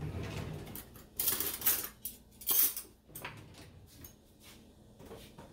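Kitchen handling noises: a few short clattering, scraping sounds of utensils and cookware, the loudest about a second and a half and two and a half seconds in.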